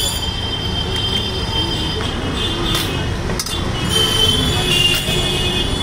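Steel spoon scraping against a big steel cooking pot, giving high metallic squeals a second or so long, with a couple of sharp metal clinks near the middle, over steady street noise.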